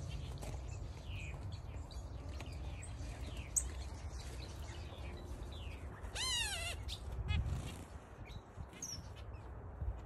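Aviary birds, finches among them, chirping: many short, quick chirps throughout, with one louder call that rises and falls about six seconds in. A steady low rumble runs underneath.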